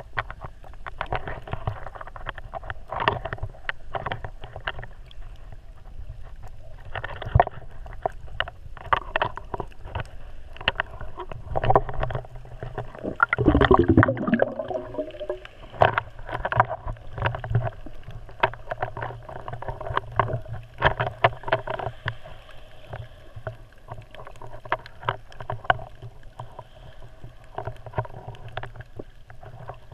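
Underwater sound of shallow sea water picked up through a submerged camera: muffled sloshing with frequent sharp clicks and knocks, and a louder burst of bubbling gurgles around the middle.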